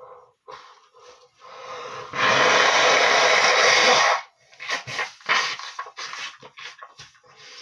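A man blowing his nose hard for about two seconds, after a few short breaths in. It is followed by a string of short rustling and snuffling sounds.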